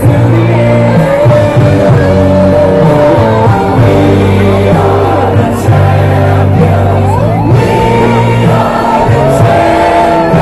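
A song with singing over sustained bass notes, playing loudly throughout.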